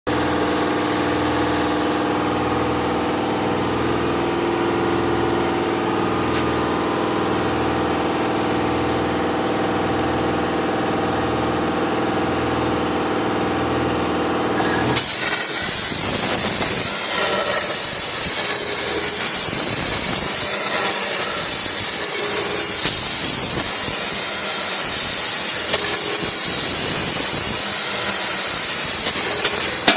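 A Colibri CNC tube-cutting machine runs with a steady humming drone. About halfway through, a loud hiss starts and keeps going as the machine cuts square tube, with a few sharp clicks in the second half.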